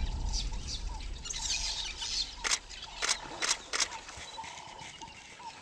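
Birds chirping and calling over outdoor water ambience, with four sharp clicks in quick succession near the middle.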